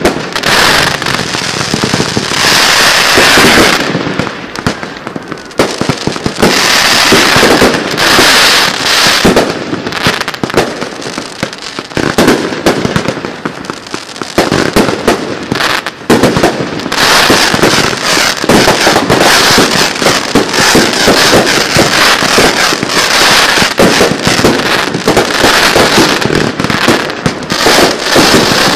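1.3G display fireworks in a finale barrage: near-continuous loud shell bursts and crackling, with short lulls about four and about thirteen seconds in.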